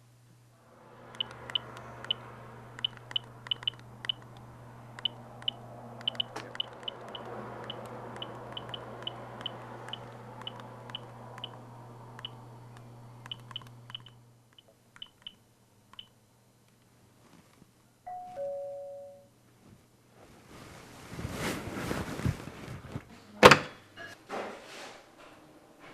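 A two-tone ding-dong doorbell rings once, about 18 seconds in, a higher note followed by a lower one. Before it there is a long noisy stretch with a steady hum and many light clicks. After it comes a loud rustling stretch and then a sharp thunk, the loudest sound here.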